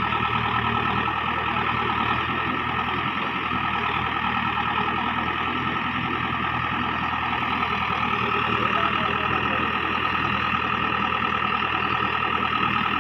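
JCB 3DX backhoe loader's diesel engine running steadily, with a high steady whine above the engine hum that grows a little louder about eight seconds in.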